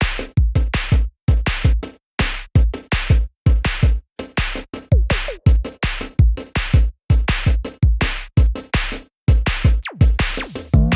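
Electronic background music with a drum-machine beat: fast, punchy hits over deep kick drums, broken by short gaps.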